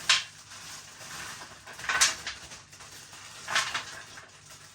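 Frozen pepper and onion pieces tipped out over a tray of frozen chips and chicken, in three short scattering bursts about a second and a half apart.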